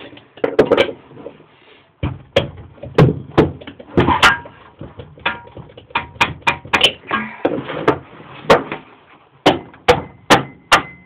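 Metal parts and hand tools knocking and clinking against a small Tecumseh mower engine as its flywheel and key are fitted back on: a string of irregular sharp knocks and clicks.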